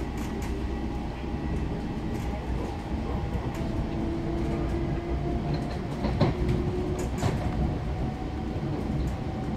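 Long Island Rail Road commuter train running, heard from inside the car: a steady rumble with a faint hum, and a few clicks of the wheels over the rails about six and seven seconds in.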